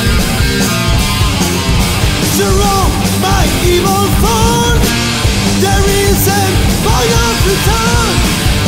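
Heavy metal band playing at full volume: a dense wall of drums, bass and distorted guitars with a steady driving beat. A bending melody line rises above the band about two seconds in.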